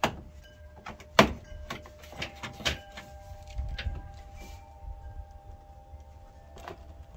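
A few sharp clacks and knocks of a Mazda Miata's plastic front lip spoiler and bumper being handled, the loudest about a second in.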